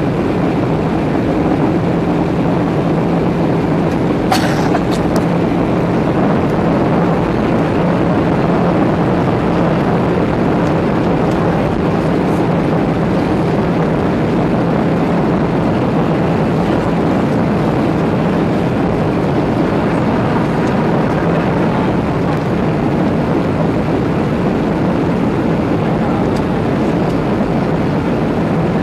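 Steady cabin noise of a Boeing 737-700 in flight: rushing air and engine hum with a faint low drone, and a brief click about four seconds in.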